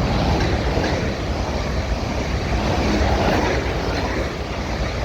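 Two coupled Class 444 Desiro electric multiple units passing through the station, a steady loud rush of wheel, rail and body noise.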